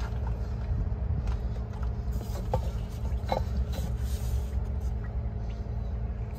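Steady low hum of machinery running in the background, with a few faint light clicks.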